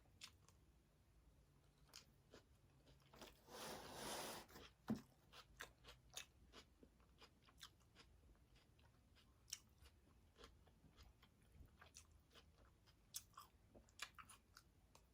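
Faint close-up chewing of food, with scattered small wet mouth clicks. A short rustling burst comes about three and a half seconds in, and a single sharp click about five seconds in.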